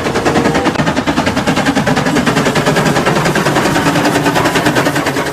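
A rapid, even rattle of sharp clicks, roughly a dozen a second, steady throughout.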